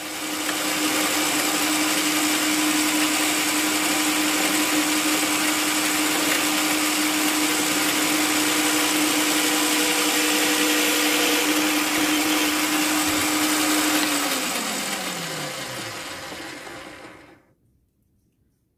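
Parkside bench drill press running at a steady speed with a steady hum, then switched off about fourteen seconds in, its pitch falling as the motor winds down to a stop a few seconds later.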